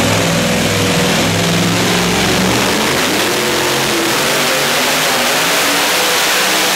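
Two-wheel-drive pulling tractor's supercharged engine at full throttle, running loud through open exhaust headers under the load of the pulling sled. The engine note shifts about two and a half seconds in.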